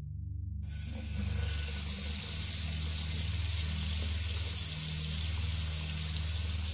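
Water running from a bathroom tap into a plastic bucket, a steady rush that starts about half a second in.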